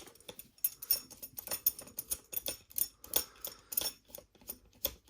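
Rope being pushed through a cable tidy and handled, with irregular small clicks and rustles several times a second.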